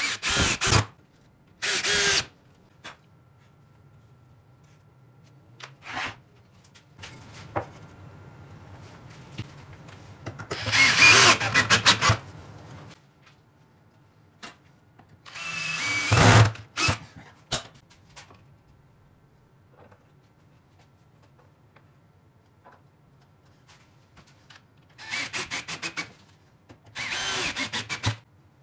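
Cordless drill driving wood screws into pine in about seven short runs, the longest lasting under two seconds near the middle, with quiet pauses and a few light knocks of wood between them.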